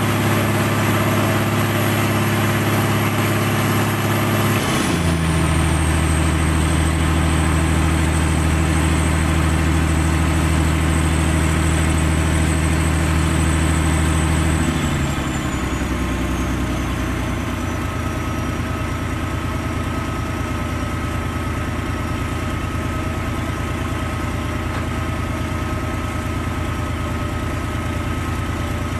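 Sinotruk HOWO dump truck's diesel engine running as the truck backs away. Its note steps down in pitch about five seconds in and again about fifteen seconds in, a little quieter after the second drop, with a faint high whine that falls in pitch at the same moments.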